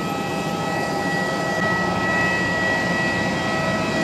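Jet aircraft turbine noise: a steady high whine over a steady rushing noise.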